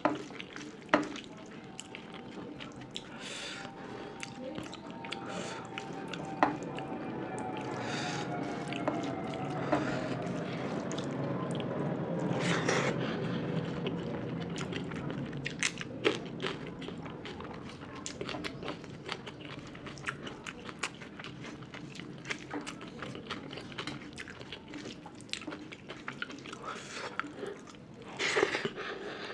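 A person chewing food close to the microphone, with frequent wet mouth clicks and smacks and a few louder bites. In the middle, a faint background tone slowly falls in pitch and fades.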